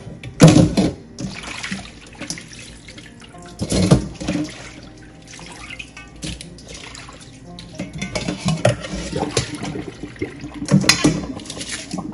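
Raw shrimp being washed by hand in a stainless steel bowl of water: irregular splashing and sloshing, with water dripping off through a mesh strainer. The biggest splashes come about half a second in and again near four seconds.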